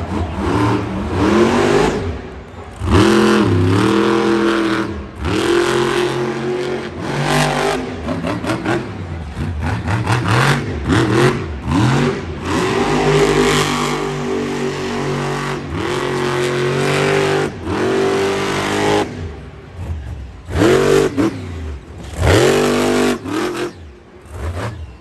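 Monster truck's supercharged V8 revving hard in repeated surges, the pitch climbing and dropping with each stab of throttle. It eases off briefly about three quarters of the way through, then gives several more sharp blips.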